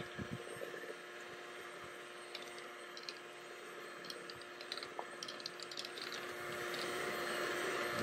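Electric hand mixer with dough hooks running steadily in a bowl, working flour into wet dough, with scattered light ticks. It gets louder about three-quarters of the way through.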